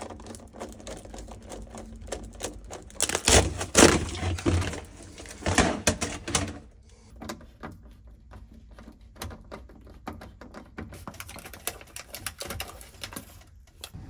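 Nut driver turning the screw of a worm-gear hose clamp on foil flexible dryer duct: a run of quick clicks as the clamp tightens. The clicks are louder in the first half and fainter and sparser from about six and a half seconds in.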